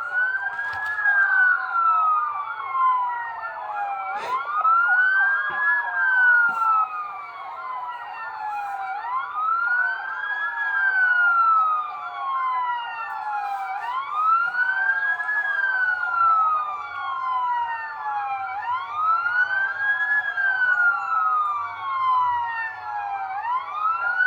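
Police siren wailing, each cycle rising quickly and then falling slowly, repeating about every five seconds, with a second siren warbling at a steadier pitch underneath.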